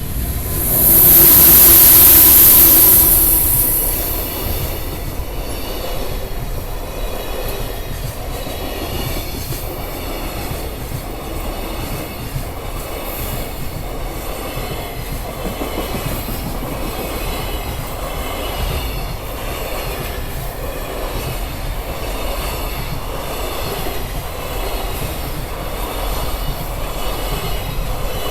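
Freight train passing over a level crossing. A loud hissing rush comes in the first few seconds, then the wagons roll past steadily, their wheels clacking and squealing on the rails.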